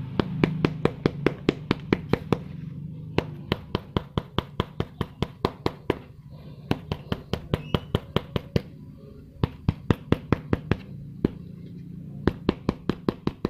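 Rapid taps of a tool on the rubber sole of a sport sneaker, about five sharp knocks a second in runs with brief pauses, pounding the sole down onto contact glue so that it bonds.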